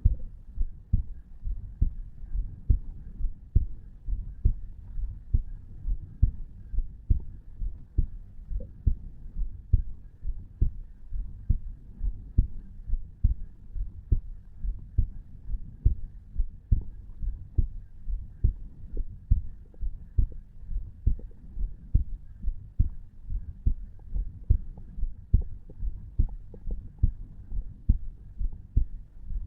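Human heartbeat of a 34-year-old man at rest, recorded over the tricuspid valve: a steady, even rhythm of dull low thumps at around 60 to 70 beats a minute.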